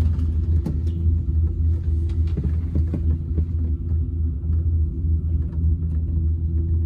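A vehicle engine running steadily with a low drone, with a few faint clicks and rattles over it.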